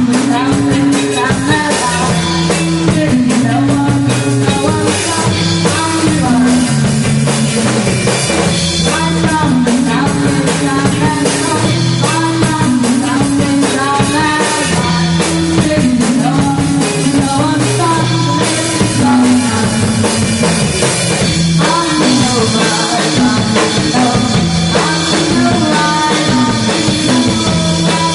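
Rock band playing a song live: drum kit and guitar over a stepping low bass line, loud and continuous.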